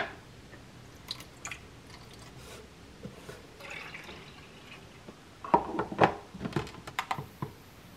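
A small plastic desk humidifier being refilled: faint water dripping and trickling, with scattered light clicks. About five and a half seconds in comes a short run of louder plastic clicks and taps as it is handled and set back on the shelf.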